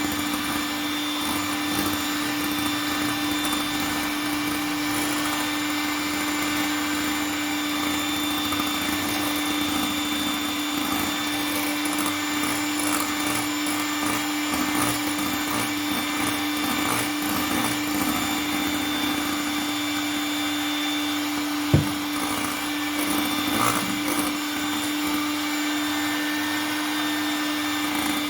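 Electric mixer running steadily at one speed, beating the cake batter of eggs and sugar, with one sharp knock about three quarters of the way through.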